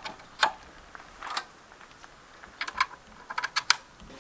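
Light, irregular clicks and knocks of metal parts and tools being handled during engine work, with a quick run of several clicks a little after three seconds in.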